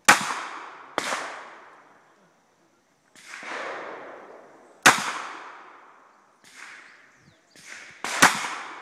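Four shots from a 9mm revolver fired outdoors, each sharp crack trailing off in a long echo. The first two come about a second apart and the others a few seconds apart, with fainter reports between them.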